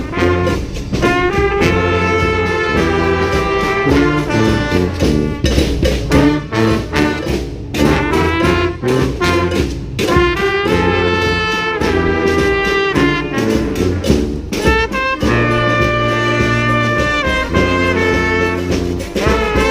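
Street brass band of horns and percussion playing a cumbia tune: the horns carry the melody in short phrases over sharp percussion hits and a steady bass line. About fifteen seconds in, the horns change to long held chords.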